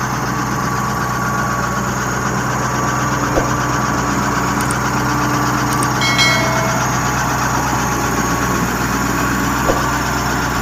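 Komatsu D85PX bulldozer's diesel engine running at a steady pitch while it works, with a few short knocks and a brief squeal about halfway through.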